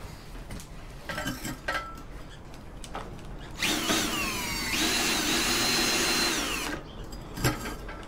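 Ryobi cordless drill turning the shaft of a wire stripping machine, run for about three seconds with a high whine. The whine wavers at first, holds steady, then drops in pitch as the drill stops. A few light knocks come before it, and one knock comes after.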